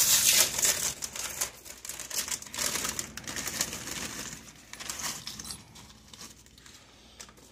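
Plastic snack bag crinkling and crackling as it is handled and emptied, crackers spilling out into a dish of snack mix. Loudest in the first second, then lighter and more sparse.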